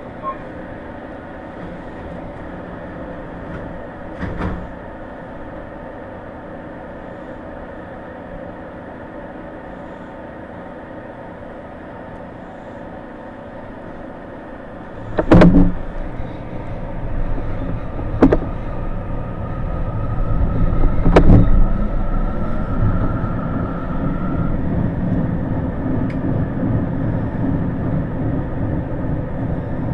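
Electric commuter train standing at a platform with a steady hum, then a few loud clunks about halfway through as it gets under way. A faint whine rises slightly and the wheel rumble builds as the train pulls out.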